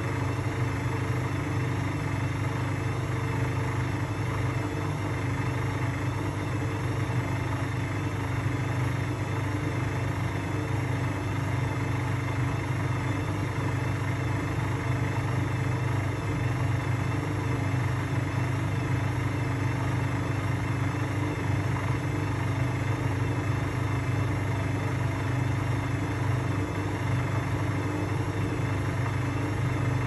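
Indesit slim washing machine in its spin cycle, the drum spinning at a steady high speed: a steady low hum with a higher whine on top, unchanging in pitch.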